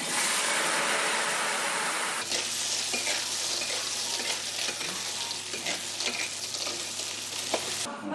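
Leafy greens hitting a hot, oiled wok and sizzling loudly, then being stir-fried, with a spatula scraping and ticking against the wok. The sizzle is loudest in the first two seconds and stops shortly before the end.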